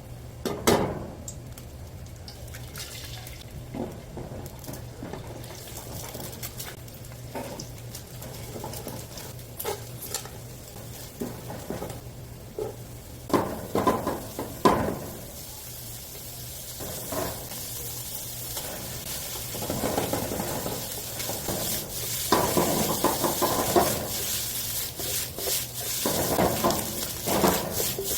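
Fried rice being stir-fried in a pan: sizzling, with a utensil scraping and knocking against the pan, several sharp clanks about halfway through and longer stretches of scraping near the end, over a steady low hum.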